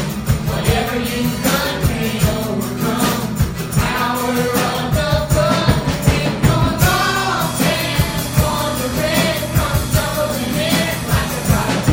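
Live congregational worship music: voices singing a melody over a band with bass and a steady drum beat.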